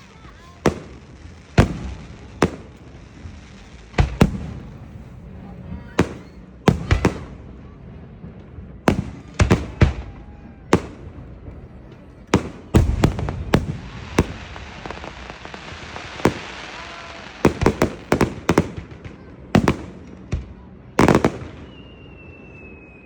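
Fireworks going off: many sharp, irregular bangs, some in quick clusters, with a stretch of crackling about two-thirds of the way in. A high, slightly falling whistle starts near the end.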